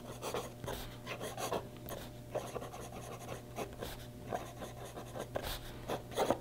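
Flexible italic fountain pen nib scratching across paper while words are written in cursive, in short, irregular strokes.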